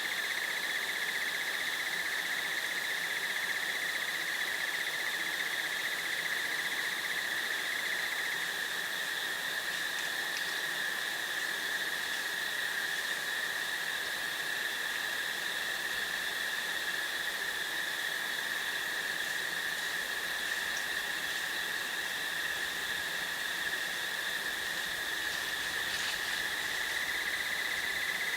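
Crickets trilling in a steady, unbroken high-pitched chorus, with a few faint brief chirps or clicks over it.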